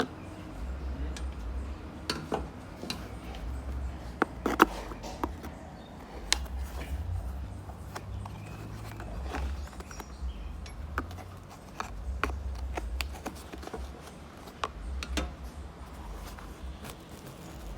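Scattered clicks and light knocks at uneven intervals from hands and tools working on a plastic AC evaporator core housing as it is taken apart, over a low, uneven rumble.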